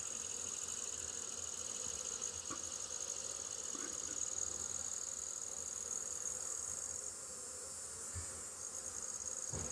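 Honey bees buzzing in large numbers around an open hive, a steady hum, with a steady high-pitched insect trill above it.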